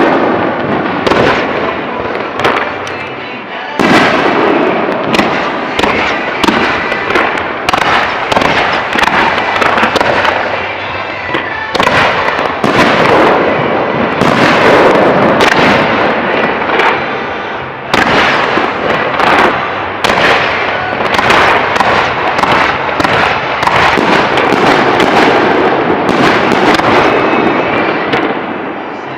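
Fireworks display: a dense, continuous run of shell bursts and crackling, many bangs close together. The level jumps up suddenly a few times.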